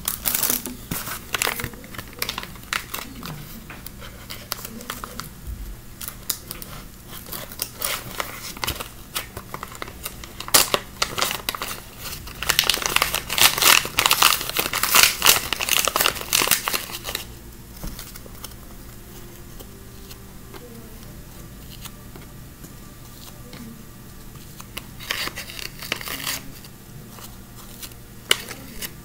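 Small plastic bag crinkling and rustling as jelly cubes are taken out of it. The crinkling comes in bursts, thickest for several seconds in the middle, quieter afterwards, with another short burst near the end.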